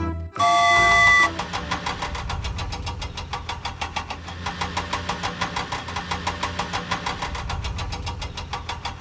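Cartoon sound effect of a toy vehicle's engine running with a fast, even chugging. It opens with a horn-like tone lasting about a second.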